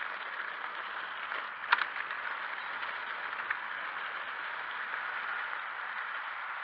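Full-suspension mountain bike rolling over a wet gravel and grass trail: a steady hiss of tyres on the surface, with a few light rattles and one sharp knock near two seconds in.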